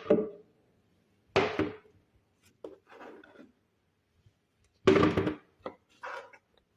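Several irregular knocks and thuds of cut vegetable pieces being put into a blender jar.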